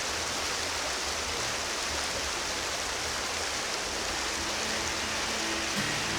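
Fast-flowing river water rushing steadily. Faint music comes in near the end.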